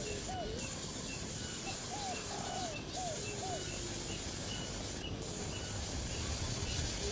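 A bird calling: two bursts of four or five short, arched notes, near the start and again about two seconds in, with low falling whistles, over a steady hiss of background noise.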